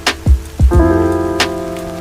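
Rain sound mixed with music: held chords over deep, pitch-dropping bass-drum hits, with a couple of sharp percussive hits.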